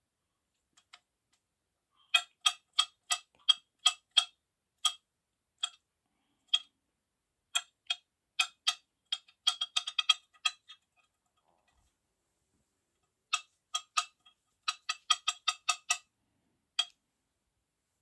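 Kitchen knife chopping garlic cloves on a hard stone cutting board: sharp clicks of the blade striking the board, about three a second, in three runs with short pauses between them.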